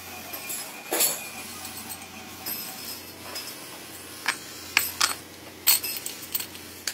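Steel rods and forged tool blanks clinking and knocking together as they are handled, several sharp metal clinks over a steady low hum.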